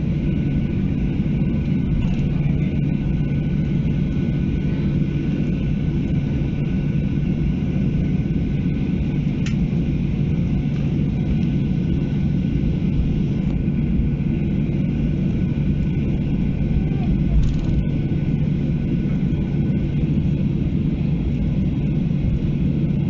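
Cabin noise of a Boeing 737-800 taxiing after landing, its CFM56-7B engines at idle: a steady low rumble with a constant hum. There are a couple of faint clicks.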